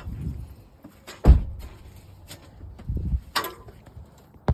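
Scrap metal being handled: a heavy thud about a second in, then a few lighter knocks and clanks, and a sharp click near the end.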